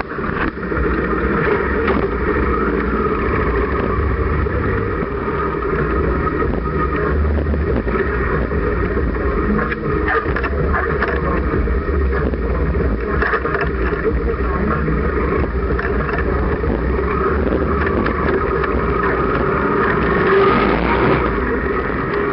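Motorcycle engines running steadily as a group of motorcycles rides along, heard from the sidecar of one of the moving bikes.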